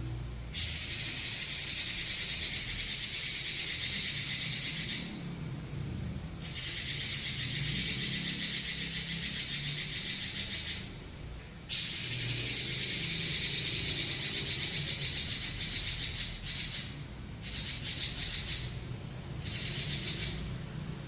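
Pekin robin (red-billed leiothrix) singing long, fast rolling trills: three sustained high trills of about four to five seconds each with brief pauses, then shorter choppy bursts near the end.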